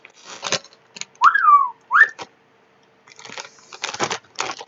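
A short two-part whistle: one note rising then sliding down, then a quick upward note. Around it, short bursts of crunching, typical of potato chips being bitten and chewed.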